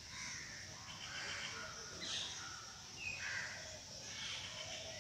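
Crows cawing in the surrounding trees: several short calls, about a second apart, over a steady outdoor background hiss.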